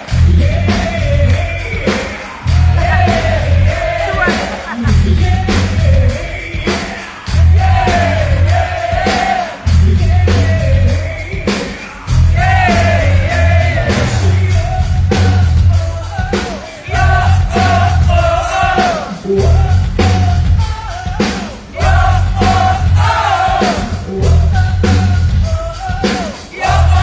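Hard rock band playing live, with a male lead singer singing over distorted guitars, bass and drums. The low end is heavy and boomy.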